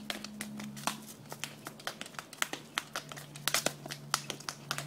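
Footsteps of leather ankle boots on pavement strewn with dry fallen maple leaves: heels clicking and leaves crinkling underfoot in quick, irregular steps, over a low steady hum.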